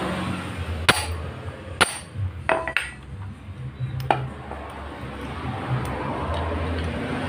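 A hammer striking a manual impact driver to break loose tight screws on a motorcycle's aluminium crankcase: about five sharp metallic strikes in the first four seconds, two of them close together near the middle.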